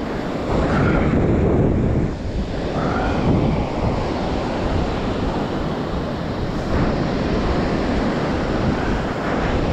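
Surf washing onto a beach, with wind buffeting the microphone.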